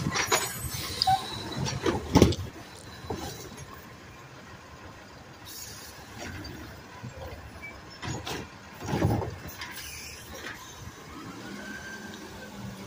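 Automated side-loader garbage truck emptying a wheeled cart: its engine runs while the hydraulic arm lifts and tips the bin into the hopper. There are sharp knocks and clatter about two seconds in and a louder rush of noise about nine seconds in.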